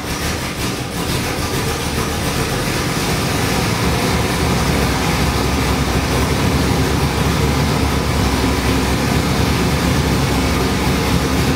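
Ford 7.3L Godzilla pushrod V8, a boost-ready build for a turbo, running on its first run demo. Its steady running grows a little louder over the first few seconds, then holds even.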